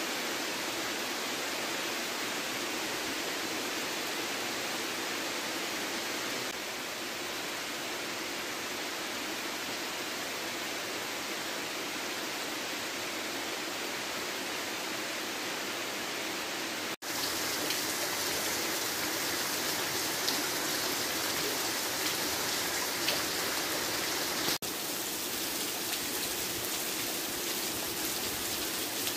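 Steady rain falling on trees and leafy undergrowth, an even hiss. About halfway through it turns louder and brighter, with single drops ticking close by, for some eight seconds, then settles back.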